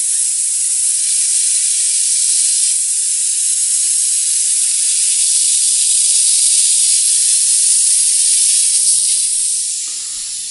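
Compressed air hissing steadily out of a fully inflated bicycle tyre through its valve, held open with a screwdriver to deflate the tube. The hiss weakens a little near the end as the pressure falls.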